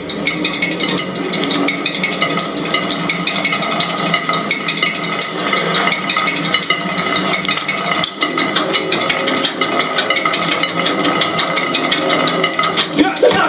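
Movie or game sound effects played through a Creative Stage SE desktop soundbar and picked up by a microphone: dense, irregular clattering and knocking over a few steady tones.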